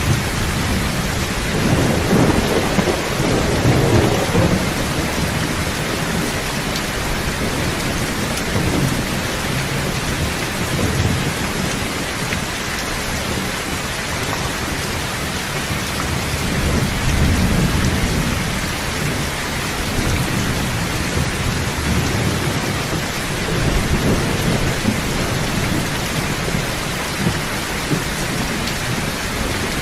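Steady rain with rolls of thunder rumbling low underneath it, the strongest in the first few seconds and weaker ones again near the middle and later on.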